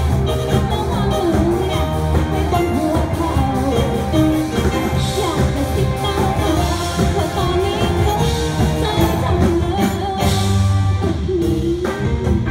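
A live band playing a rock-pop song with a singer: drum kit, electric guitars, bass and keyboard under a sung vocal line.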